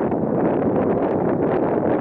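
Wind blowing across the microphone, a steady loud rush.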